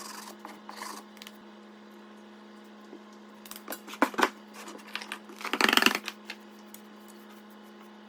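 Hands and tools working an oil-bonded sand casting flask: soft rubbing, then a few knocks about four seconds in and a short, dense rattle of clicks just before six seconds, over a steady low hum.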